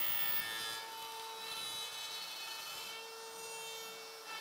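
Compact router on a small desktop CNC machine running steadily with a whine, its bit milling a curved piece of walnut edging.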